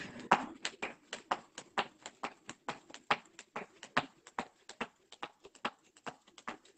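Rope skipping on paving slabs: the skipping rope and trainers striking the patio in a steady rhythm of sharp taps, about four a second.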